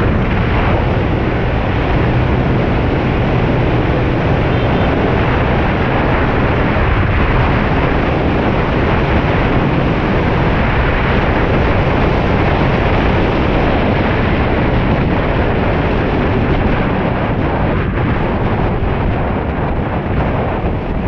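Aprilia SR 150 scooter on the move at road speed: heavy wind buffeting on the microphone over a steady low engine and road noise.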